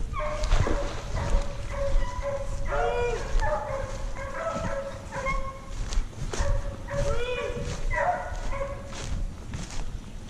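Hunting hounds baying: long, drawn-out, wavering cries, several of them overlapping and repeating every few seconds.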